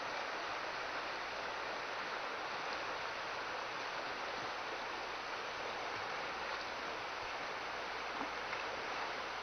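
A wide, fast-flowing river rushing: a steady, even wash of moving water.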